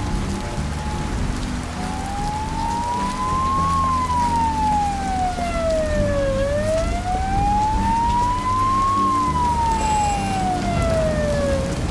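Emergency vehicle siren wailing, slowly rising and falling twice, over steady rain.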